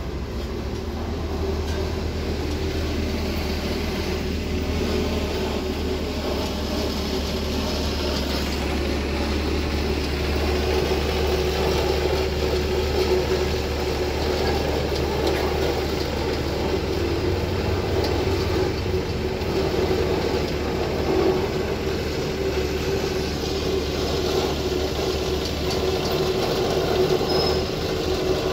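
Engine of a 5–6 ton tandem road roller running steadily while it compacts an aggregate base, a continuous low drone.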